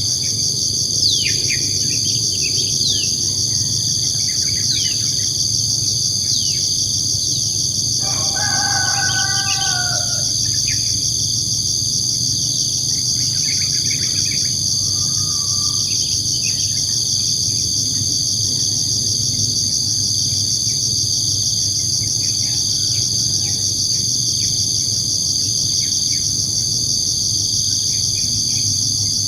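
Village twilight ambience: a steady, high-pitched chorus of insects with small birds chirping in short falling notes over the first several seconds. A rooster crows once, about eight seconds in.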